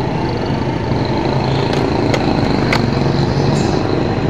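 An engine running steadily at idle, with three sharp clicks near the middle from the shift mechanism of a FAW truck gearbox as it is worked through its gears.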